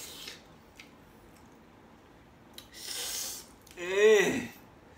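A man lets out a hissing breath through his teeth, then a wavering groan that rises and falls in pitch. He is wincing at the sourness of the green ambarella fruit he is eating.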